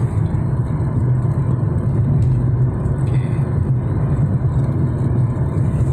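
Steady low rumble of a car driving at highway speed, its road and engine noise heard from inside the cabin.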